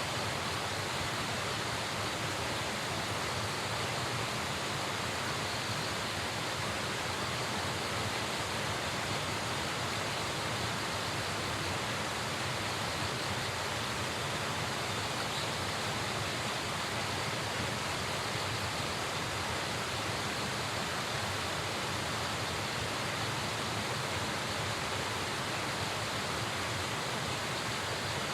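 Steady, even rushing of a fast-flowing river or stream, with no distinct calls or other events.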